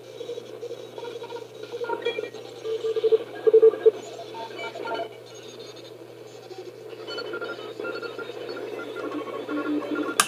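Shortwave radio receiver tuned to the 21 MHz band, putting out scrambled data beeping: many short tones at several different pitches, like jumbled Morse code, over a band of static hiss. A sharp click near the end.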